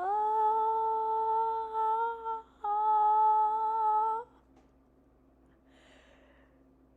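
A voice holding a long, steady "aah" twice, each rising slightly at the end: the drawn-out wind-up to a sneeze.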